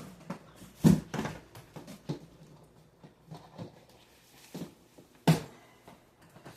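Handling noise: scattered knocks and clicks from a toy box and plastic figure parts being picked up and moved, with a sharp knock just under a second in and another just after five seconds.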